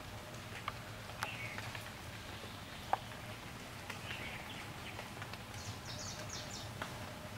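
Outdoor ambience of scattered light clicks, ticks and scratchy rustles, with a short run of high chirps a little before the end.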